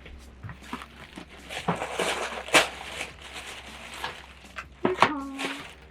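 Close-miked eating sounds: chewing and mouth noises with scattered clicks, and a short pitched hum about five seconds in.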